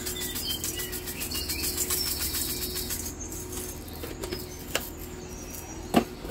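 Red pepper flakes being shaken from a spice shaker over raw shrimp: a quick, even rattle for the first three seconds, then one sharp knock near the end.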